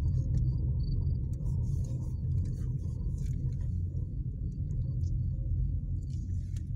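Car cabin road noise: a steady low rumble of tyres and suspension running over broken, potholed asphalt, with a few faint clicks and rattles.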